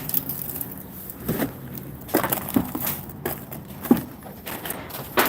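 A handful of irregular knocks and scrapes, as of tools and masonry materials being handled, over a low steady background.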